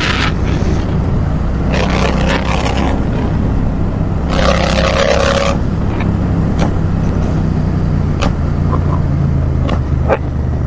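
Royal Enfield Interceptor 650's parallel-twin engine running under way through an open silencer with its baffle mesh removed, a steady deep exhaust note. Two short rushing bursts of hiss cut in about two and four and a half seconds in.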